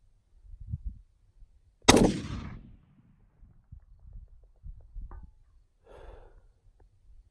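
A single shot from a gas-operated .308 rifle with a 16-inch Daniel Defense barrel firing 168-grain Gold Medal Match: one sharp, loud crack about two seconds in, its echo trailing off over about half a second. A faint sharp tick follows some three seconds later.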